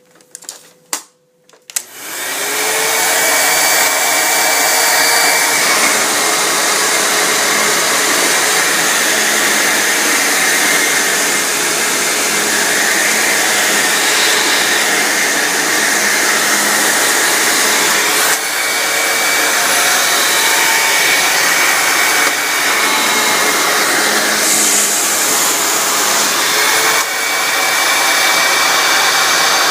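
Hoover U6634-900 vacuum cleaner switched on about two seconds in, its motor spinning up to a loud steady whine and running on, the tone dipping briefly a few times.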